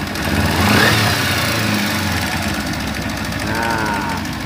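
Kawasaki Ninja 250 FI parallel-twin engine idling with a fast, even metallic clatter ("kletek-kletek"), the complaint heard when it is started cold in the morning: the sign of a failed cam chain tensioner letting the timing chain rattle.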